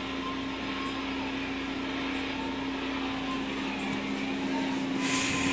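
Steady machine hum with a low drone and an even hiss, and a brief swell of hiss near the end.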